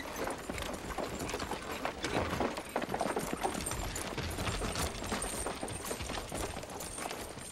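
Horses' hooves clopping on hard ground, a dense, irregular run of hoofbeats that eases off toward the end.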